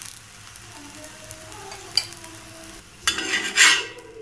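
A wheat parotta frying in oil on a hot dosa tawa, sizzling steadily. About three seconds in, a louder burst of scraping and sizzling comes as a spatula lifts and turns the parotta.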